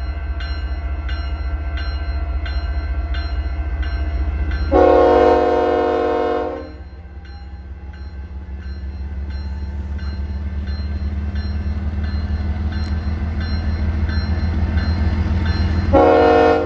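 Union Pacific freight train's diesel locomotives rumbling low and growing louder on approach, while a grade-crossing bell rings about twice a second. The locomotive horn sounds one long blast about five seconds in, lasting about two seconds, and a second blast starts near the end.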